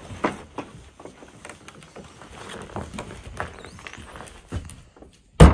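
Footsteps and handling of a wooden cabin door as people open it and step inside: a scatter of knocks and scuffs, then one sharp, loud thud near the end.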